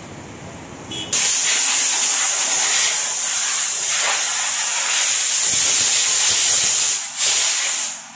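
A hand-held car-wash nozzle hissing loudly as a strong jet is sprayed at a pickup's rear bumper. It starts about a second in, dips briefly near seven seconds, and cuts off just before the end.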